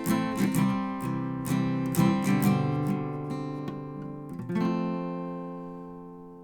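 Acoustic guitar strummed in a steady rhythm, then a final chord struck about four and a half seconds in and left to ring out, fading slowly.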